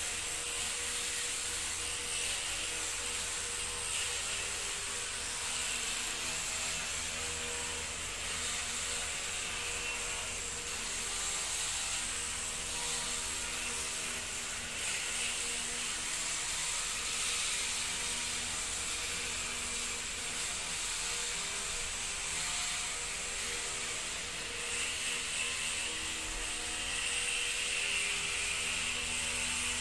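Electric motors and high-speed flywheel rotor of a homemade gyroscopically balanced two-wheeled robot vehicle whining steadily as it drives, a shrill hiss over several steady tones that drift slightly in pitch.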